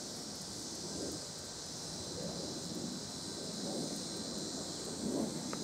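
Steady, high-pitched chorus of insects such as crickets, with soft low rustling swelling a few times.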